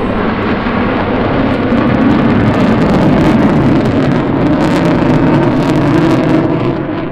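Loud jet noise from an F-15C Eagle's two Pratt & Whitney F100 turbofans on afterburner during a fast pass: a deep, dense rumble with sharp crackling through the middle, easing off near the end.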